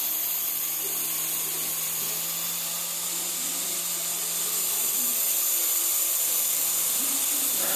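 Syma S107G mini coaxial RC helicopter in flight: the steady high whine of its small electric motors and spinning rotors, with a steady low hum underneath.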